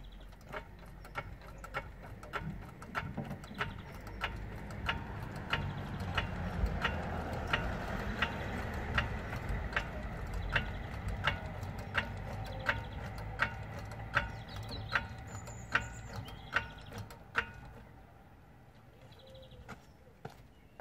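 Hydraulic trolley jack being pumped by its long handle to lift a car, a sharp click at each stroke about every 0.7 s, stopping near the end.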